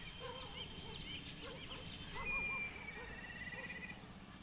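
A chorus of birds calling: many short rising-and-falling calls repeated over and over, with thin high trills running steadily behind them.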